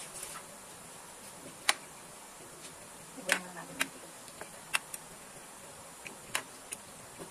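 Scattered sharp clicks and clinks of a kitchen utensil against a metal pan as raw chicken feet are moved around in it, about six or seven irregular knocks over a faint steady background.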